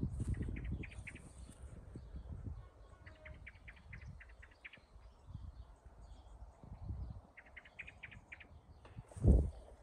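A small bird chirping in three quick runs of short chirps, about seven a second, over an uneven low rumble of wind on the microphone. A single loud low thump comes near the end.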